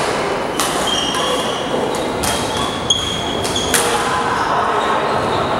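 Badminton rally: three sharp racket strikes on the shuttlecock, about a second and a half apart, with short squeaks of shoes on the court floor. Background chatter rings in a large, echoing hall.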